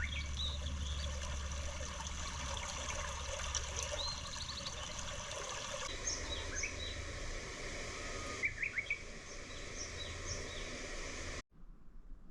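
Small birds chirping outdoors: many short, high chirps and quick glides over a steady background hum. The sound changes at a couple of points and cuts off abruptly near the end.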